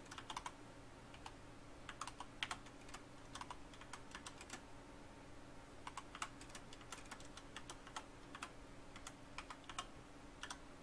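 Faint computer keyboard typing: key clicks in short, irregular bursts as a phrase is typed out, over a faint steady hum.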